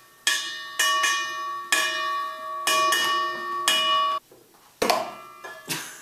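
Bell-like chimes: about six sharply struck, ringing notes in roughly four seconds, each sounding the same stack of tones, followed by a couple of short noisy sounds near the end.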